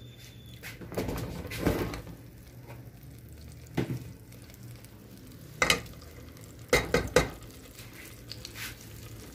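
Margarine and a little oil sizzling faintly as they heat in a pot, with several sharp knocks and clatters of cookware, the loudest a quick cluster a little past the middle.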